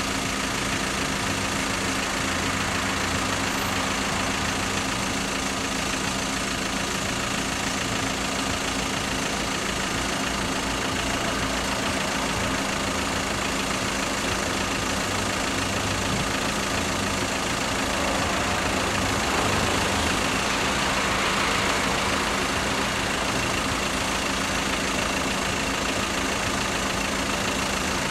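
A small hatchback's engine idling steadily close by, a constant low hum with light hiss.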